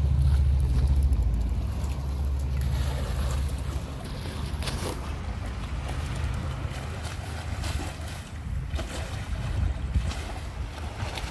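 Low rumble of wind buffeting the microphone over water washing and lapping around a small boat on a lake, with a few brief splashes.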